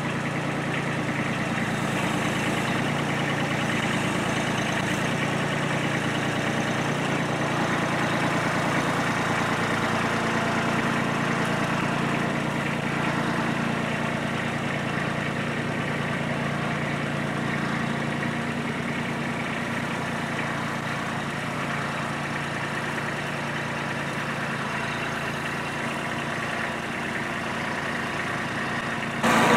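Kubota compact diesel tractor's engine running steadily while it moves a stack of hay bales on its front pallet forks, growing a little fainter in the second half as it pulls away.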